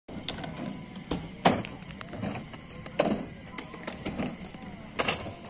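Inline skate wheels rolling on concrete ramps, with three sharp clacks of skates hitting the surface about a second and a half, three and five seconds in. Faint voices in the background.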